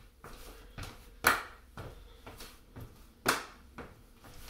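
Dance steps in sneakers on a hardwood floor: light footfalls in a steady beat, about two a second, with every fourth one much louder.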